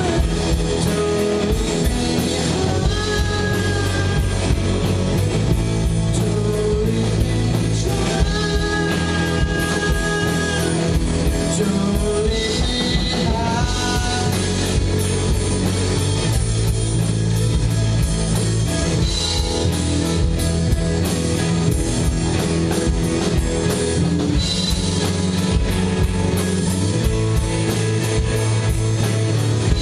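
Live rock band playing amplified: electric guitars and a drum kit, with a high melody line that bends and slides in pitch now and then.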